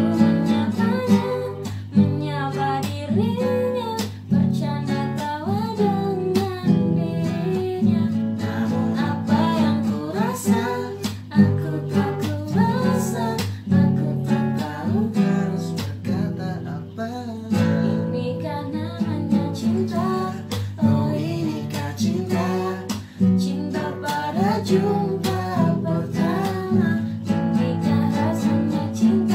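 Acoustic guitar played as accompaniment to a voice singing a song.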